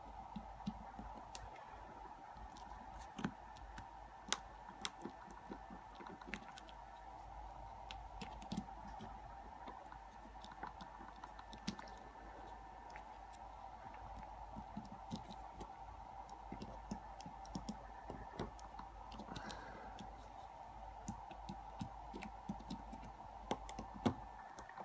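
Flat-bladed screwdriver prying and scraping at the retaining ring on the back of a small brass lock cylinder: faint, irregular metal clicks and scrapes over a steady background hum.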